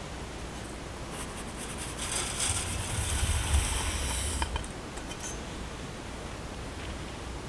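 Finely ground oatmeal poured from a bowl into a stainless-steel mesh sieve: a soft hissing rush of powder, starting about a second in and lasting about three seconds, followed by a few light clicks.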